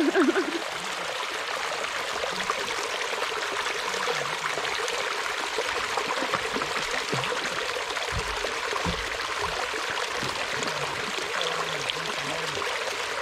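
Shallow creek water running and trickling over a sloping rock slab, a steady, even rush.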